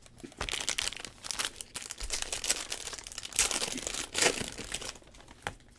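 Plastic trading-card pack wrapping crinkling and crackling as it is handled, in irregular bursts, loudest about three and a half and four seconds in.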